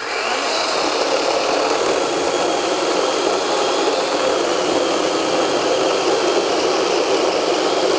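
DEWALT 12-inch XR cordless chainsaw running steadily under load, its chain cutting through hard black locust wood.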